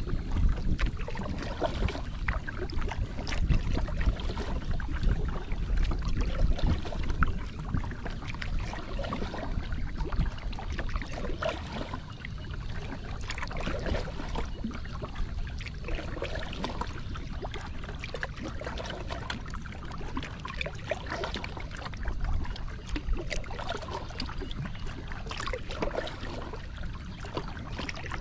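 Water lapping and splashing against the hull of a Moken 12.5 kayak, a steady run of small splashes and drips, over a low rumble that is heavier in the first several seconds.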